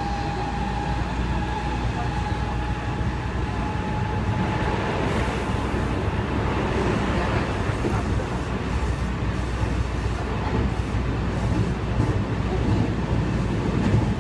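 JR West 207 series electric commuter train running, heard from inside the passenger car as a steady rumble and hiss of wheels on track. A thin whine rises slightly in pitch and fades out about five seconds in.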